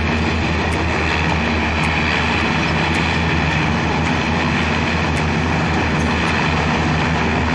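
LCAC (landing craft air cushion) hovercraft running over the water, its gas-turbine engines, lift fans and ducted propellers making a loud, steady drone: a low hum with a high whine held over it.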